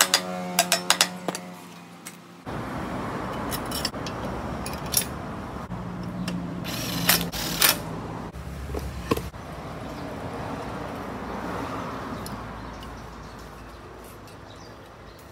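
Light metallic clinks and knocks from handling a bare aluminium Honda PCX crankcase and its steel cylinder studs, including a caliper set across the bore, over a steady background noise.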